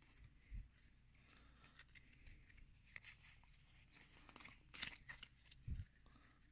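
Faint handling of a stack of Pokémon trading cards: cards sliding against each other, with a few soft clicks and taps.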